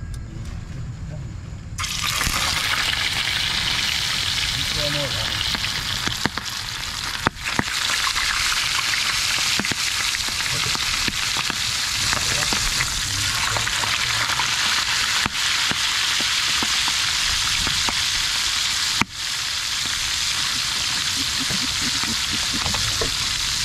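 Milkfish steaks frying in a pan of hot oil: a loud sizzle starts suddenly about two seconds in as the fish goes into the oil, then runs on steadily.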